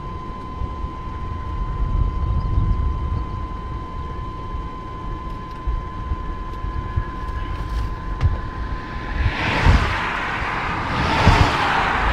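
Wind rumbling on the microphone, with a steady high-pitched tone that stops about nine seconds in; near the end a rushing hiss rises over the rumble.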